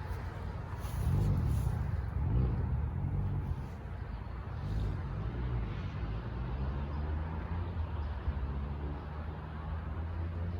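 Low engine hum of a motor vehicle, swelling louder about a second in and easing off a few seconds later.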